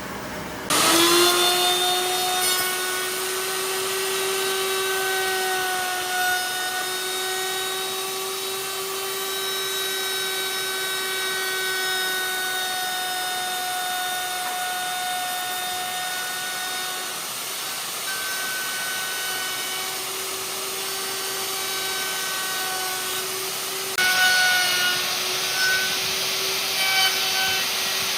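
Handheld electric power tool starting abruptly and running with a steady motor whine, its pitch sagging slightly a few times.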